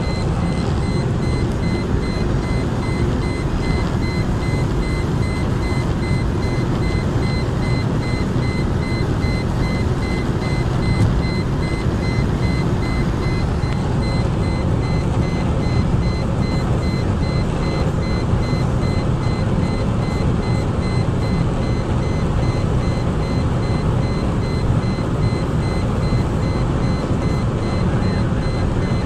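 Interior noise of a Mercedes-Benz E240 held near its top speed of about 230 km/h. The V6 engine, wind and tyre noise blend into a steady low rumble, with a thin, steady high-pitched tone above it.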